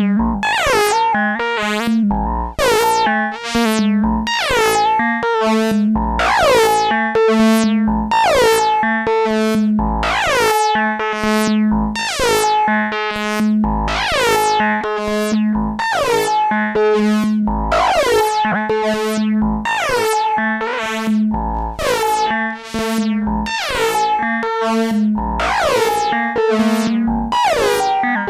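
Vermona Perfourmer MKII analog synthesizer playing a repeating sequence of short notes over a held low note, each note starting bright and sweeping down as its filter closes. The sound runs through a Behringer FX2000 effects unit whose settings are being changed.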